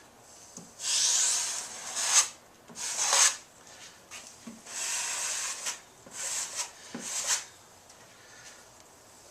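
Metal taping knife spreading and scraping joint compound across drywall, in about five rasping strokes, the first and longest a little over a second.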